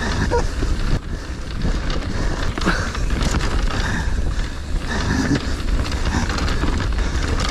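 Dartmoor Hornet hardtail mountain bike riding fast down a dirt trail: tyres rolling over rough ground with constant clattering and knocks from the bike, over a deep rumble of wind on the microphone.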